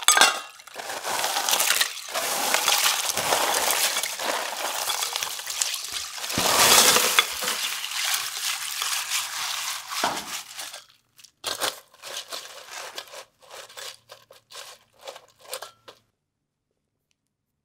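Crushed ice poured and pressed into a glass bowl of water, a long run of crunching and sloshing that is loudest about seven seconds in. Then a scatter of separate clinks and taps, which stop about sixteen seconds in.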